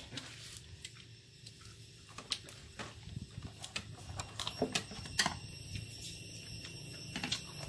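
A person chewing boiled buffalo skin, with scattered wet mouth clicks. A low rumble builds in the second half.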